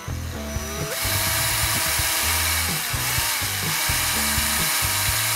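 Bosch cordless drill running, its bit boring into a cucumber, a steady whirring hiss that starts about a second in. Background music with a steady beat plays underneath.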